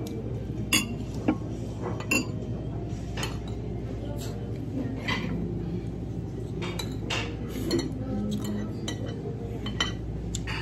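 Metal spoon and fork clinking against ceramic plates and bowls during a meal: scattered sharp clinks, the loudest in the first couple of seconds, over a steady low hum.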